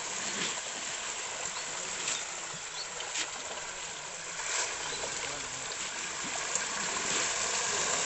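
Pond water churning as a crowd of fish thrashes at the surface: a steady rushing splash with sharper individual splashes breaking through every second or so.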